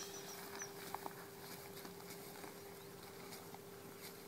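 Faint outdoor ambience: a steady faint hum, with a couple of light clicks about a second in.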